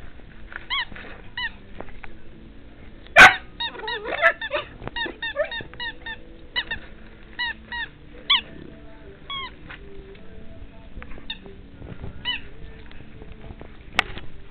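Rubber squeaky dog toy squeaking in quick short bursts as a dog bites and chews it, dozens of squeaks in all. A loud knock comes about three seconds in and a sharp click near the end, over faint background music.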